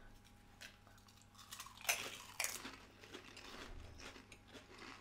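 Close-up biting and chewing of a stacked potato crisp from a Pringles can: a few crisp crunches, the loudest about two seconds in.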